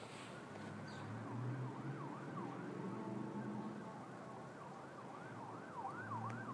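Faint emergency vehicle siren, wailing in slow rising and falling glides that switch to quick up-and-down yelps in bursts during the second half.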